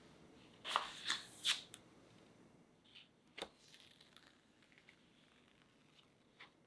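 Stainless-steel cake ring being slid up off a set cheesecake, its clear acetate collar rustling and scraping in three short rasps about a second in, then a single light click a couple of seconds later.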